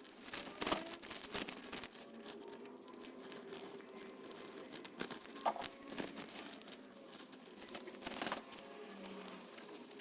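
Crinkling, rustling handling noises with a few sharp clicks, over a faint steady hum.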